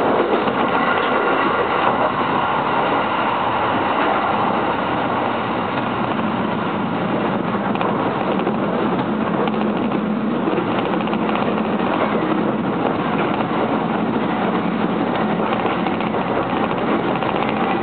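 Electric commuter train running at a steady speed, heard from inside the passenger car: an even rumble of wheels and running gear on the rails.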